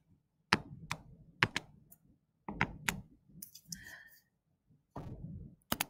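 Quiet, sharp clicks and taps, about eight of them irregularly spaced with a quick double near the end, from the input device working the digital note page as the ink arrows are erased.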